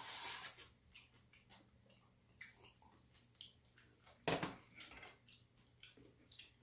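Quiet clicks and rustles of a meal: chopsticks and cups tapping against plastic takeaway containers and a metal tray, and a plastic bag crinkling, with a short rustle at the start and a louder one just past four seconds in.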